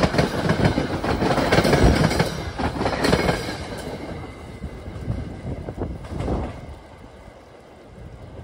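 NJ Transit commuter train rolling past close by, its wheels clattering over the rail joints, loudest in the first few seconds and then fading as the cars move away.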